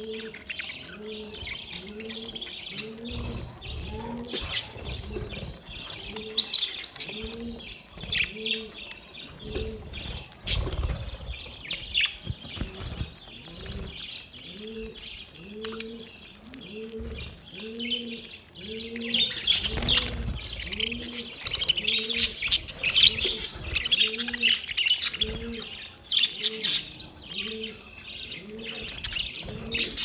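A flock of budgerigars chattering and chirping continuously while feeding, the chatter growing denser and louder about two-thirds of the way through. Underneath, a low coo repeats evenly about once a second.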